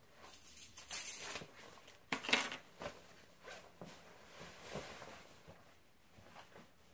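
Handling noises: a padded jacket rustling and a few small metallic clinks like coins or keys, the loudest rustle about two seconds in, then soft footsteps across a wooden floor.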